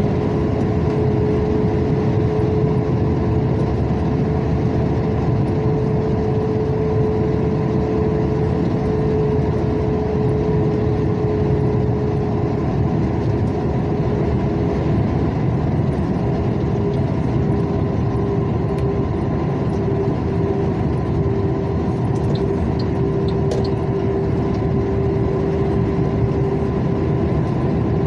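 Car driving at steady speed on a highway, heard from inside the moving vehicle: constant engine and tyre-on-asphalt noise with a steady drone.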